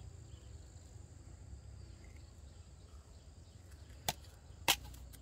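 Two sharp knocks, about four seconds in and half a second apart, over a low steady rumble.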